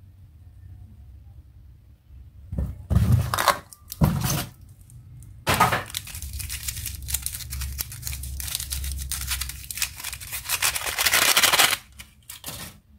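Toy packaging being torn open and crinkled by hand: two short tears, then a long run of dense crackling and rustling that stops abruptly near the end.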